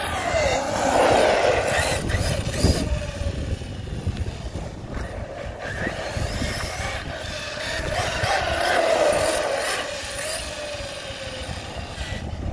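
Arrma Kraton 6S RC truck's brushless motor whining, rising and falling in pitch as it speeds up and slows, with tyre and drivetrain noise on concrete. The whine swells twice, about a second in and again near the end, with a sharp knock early on.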